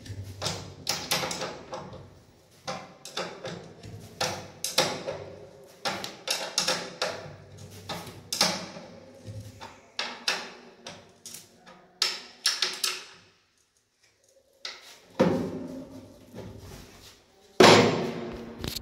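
Irregular knocks and clatters of hard objects, a few a second, each ringing briefly. They stop for a moment just past the middle, then come back with two louder bangs near the end.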